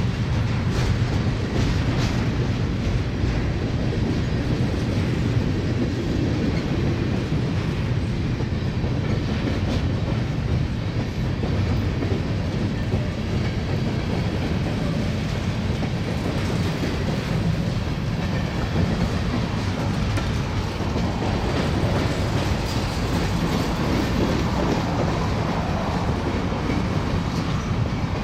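Empty BNSF covered hopper grain cars rolling past, a steady rumble and clatter of steel wheels on the rail.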